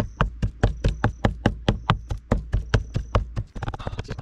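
Kitchen knife chopping raw fish on a cutting board, mincing it fine: a rapid, even run of sharp knocks about five or six a second, turning into softer, quicker taps near the end.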